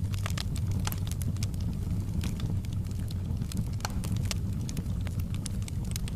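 Wood bonfire crackling, with irregular sharp pops over a steady low rumble.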